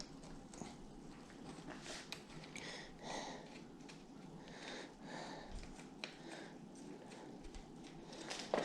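Faint scattered clicks and rustling of small metal parts being handled while fitting a bicycle stem and its bolts.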